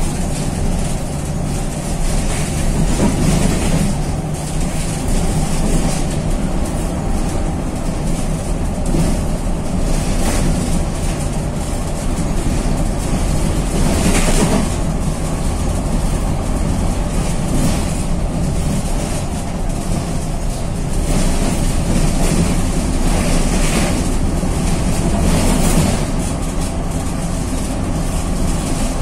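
Rear-mounted diesel engine of a Volkswagen 26.330 OTA city bus, heard from the rear seats as the bus drives along. It pulls harder and eases off in turn, with road noise and a few short rattles from the body.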